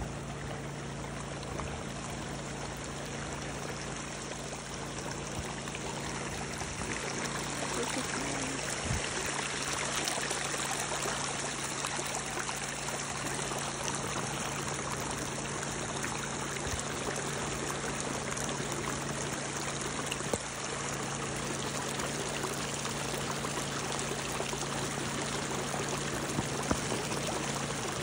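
Muddy rainwater runoff running over rocks in a small desert wash, a steady rush of flowing water that gets a little louder about eight seconds in.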